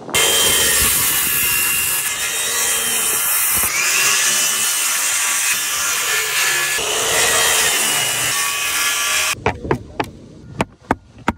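Corded DeWalt circular saw running while cutting through cedar shakes and the roof decking beneath, steady for about nine seconds with small changes as the cut turns. It then stops, and a roofing hatchet strikes the cut-out piece with a quick series of sharp knocks near the end.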